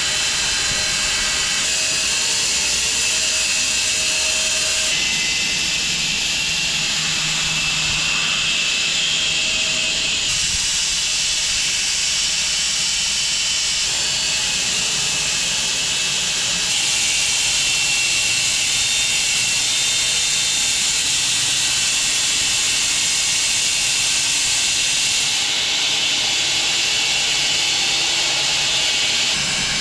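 A sawmill running and cutting through a log: a steady, loud mechanical noise whose tone shifts a few times as the cut goes on.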